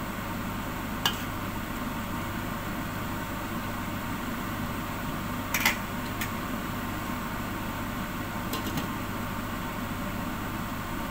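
A few sharp clinks of a metal ladle and a glass lid against a stainless steel cooking pot, the loudest a quick pair about five and a half seconds in, over a steady background hum.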